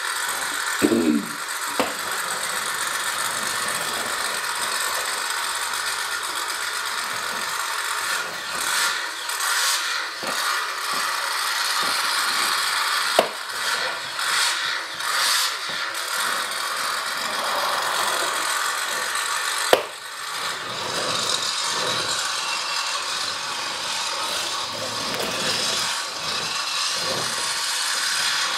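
Plastic toys rolling and rattling on a wooden floor: a steady rattling rub, with a few sharp clicks along the way.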